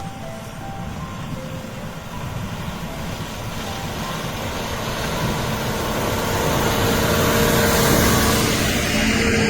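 Heavy snow-clearing machine's diesel engine running under load with a deep rumble, joined by a rushing noise that builds and peaks near the end.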